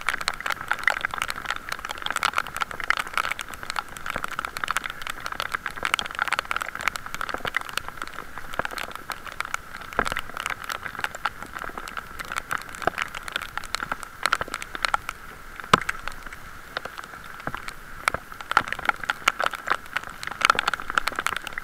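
Heavy rain striking a waterproof camera case on a moving bicycle: dense, irregular sharp taps of raindrops on the plastic housing over a steady muffled hiss.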